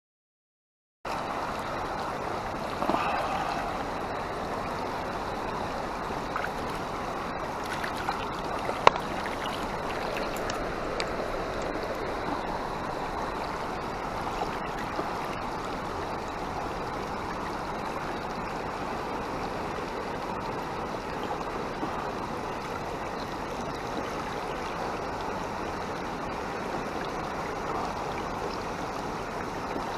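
River water flowing in a steady rush, with a couple of brief knocks.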